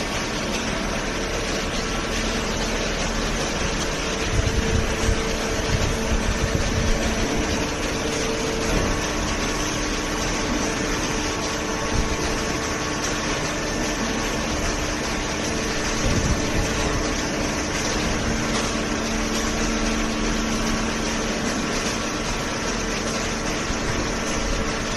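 Horizontal baler's hydraulic power unit running with a steady machine hum and held tones, with a few short low knocks about four seconds in and again around sixteen seconds.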